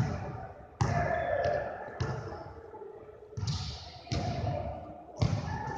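Basketball bouncing on a hardwood gym floor: about six separate thuds at irregular intervals, roughly one a second, each echoing in the hall.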